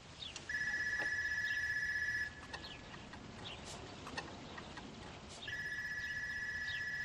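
A high, steady electronic ring sounds twice, each about two seconds long and about three seconds apart, with faint bird chirps in between.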